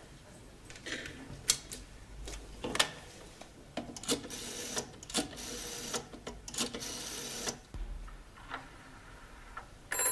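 Telephone handset picked up with a few clicks, then a rotary dial pulled round and whirring back three times as a number is dialled. A telephone bell starts ringing right at the end.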